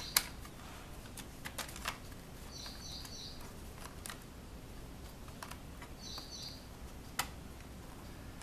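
Scattered sharp clicks and taps of a laptop motherboard being handled and seated into its plastic bottom casing, the loudest just after the start. A short high chirping sound repeats twice in the background.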